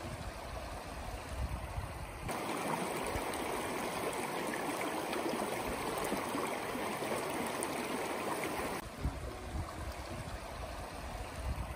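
Shallow mountain stream running over rocks: a steady rush of water that grows louder and fuller about two seconds in and drops back near the end, with a low uneven rumble underneath in the quieter stretches.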